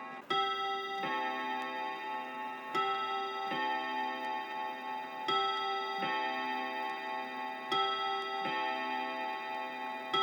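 Hermle Bim-Bam wall clock striking on its gong rods: pairs of two different ringing tones, a bim then a bam, one pair about every two and a half seconds, each note ringing on until the next stroke.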